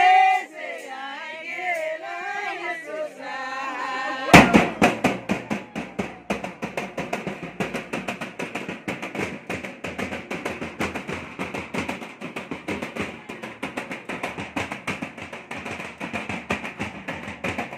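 A group singing a folk song together. About four seconds in, a drum beaten with sticks comes in, with fast, dense strokes, and the singing carries on faintly beneath it.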